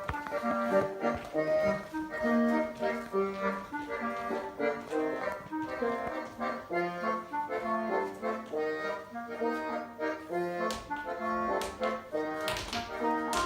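Instrumental music with a melody over held chords; a few sharp taps come in near the end.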